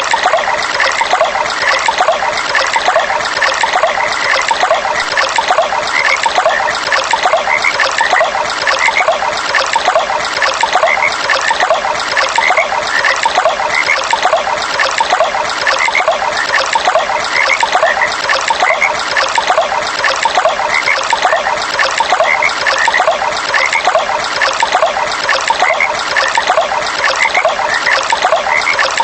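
Water trickling steadily over a stream, with frogs giving short calls again and again throughout.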